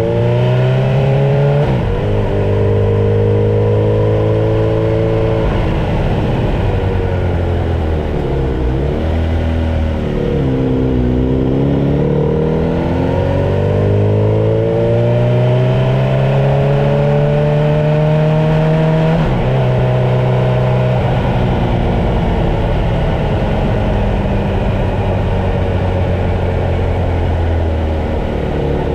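Kawasaki Z900 motorcycle's inline-four engine under way at low speed, its revs rising through each gear and dropping at the shifts. The revs fall away about eight seconds in and climb again a few seconds later, with another shift about two-thirds of the way through.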